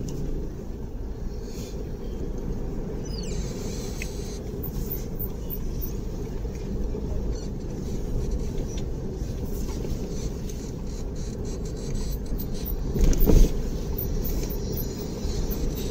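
A car in motion with a steady low rumble, and a brief louder bump about thirteen seconds in.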